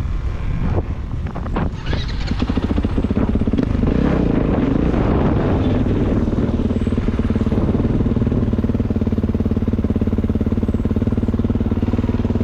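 Kawasaki KX450 dirt bike's single-cylinder four-stroke engine running, uneven at first, then holding a steady engine speed from about two seconds in.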